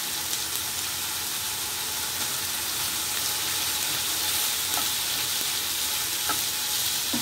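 Diced peppers, onion and chicken sizzling steadily in oil in a frying pan, stirred with a wooden spatula, with a few light knocks of the spatula against the pan.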